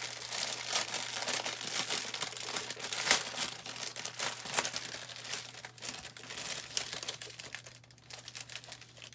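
Plastic bags crinkling as hands rummage through a bag of small zip baggies of diamond-painting drills. Busy crackling for most of it, thinning out near the end.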